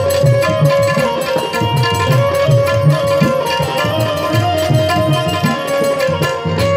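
Instrumental devotional folk music: tabla strokes in a steady rhythm under held melody notes, with no singing.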